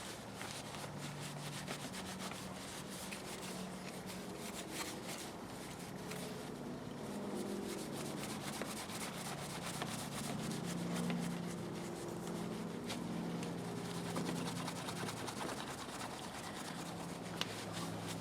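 Faint, steady rubbing of a cloth on steel linesman's pliers, working paste wax over the cleaned metal, with light scattered ticks of the tool being handled.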